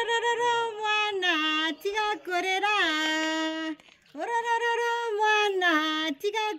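A single high voice singing unaccompanied: two sung phrases, each ending on a long held note, with a brief breath between them about four seconds in.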